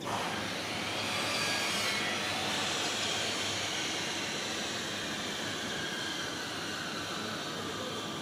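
Distant engine noise, a steady rush with a faint whine slowly falling in pitch, setting in suddenly at the start and easing off a little toward the end.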